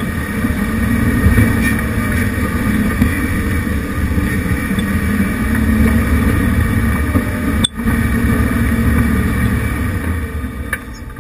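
1988 Jeep Wrangler YJ's engine running steadily at low speed as it crawls over a rocky trail, with a brief drop in sound about three-quarters of the way through.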